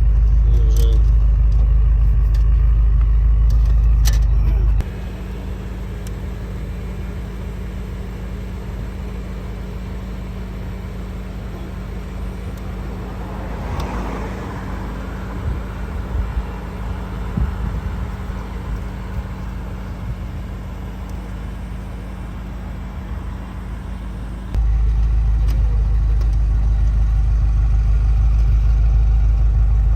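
BMW M5 F10's twin-turbo V8 car on the move, a steady low rumble. The sound changes abruptly to a quieter hum at about five seconds, with a whoosh that swells and fades around the middle, then jumps back to the louder rumble about 25 seconds in.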